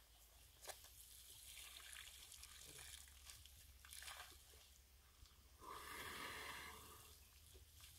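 Faint splashing and trickling of water as an African elephant bull drinks, squirting water from its trunk into its mouth. The water sounds come in short swishes, the longest and loudest lasting about a second, about six seconds in.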